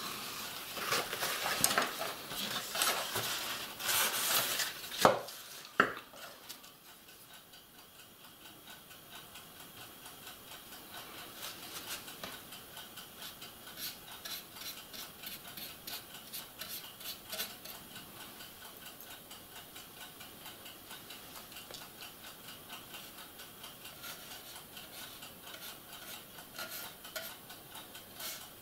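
Rustling and handling noise with a couple of sharp clicks for the first few seconds. Then a small paintbrush scratches and dabs quickly and faintly on a plastic model ship hull.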